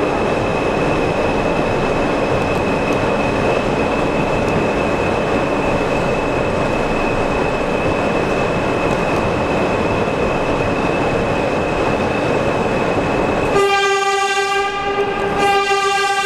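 NYC subway train running through a tunnel: a steady roar of wheels on rail with a thin, high, steady whine over it. Near the end the train's horn sounds two blasts, the second cut short by the end of the clip.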